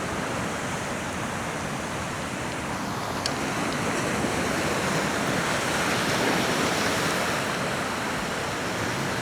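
Rough sea surf washing against a rocky shore: a steady rushing wash that swells a little in the second half.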